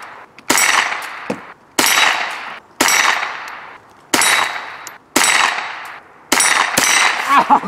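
.22 rimfire rifle fired six times at a steady pace of about one shot a second. Each shot is sharp and trails off over about a second.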